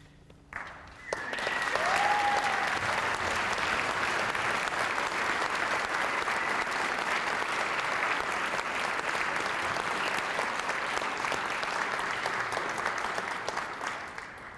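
Audience applauding a school wind ensemble at the end of a piece, starting about a second in, holding steady and dying away near the end.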